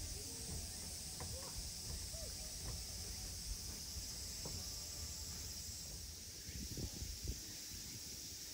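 Steady high-pitched drone of summer insects, with a few faint short calls early on and some low thumps near the end.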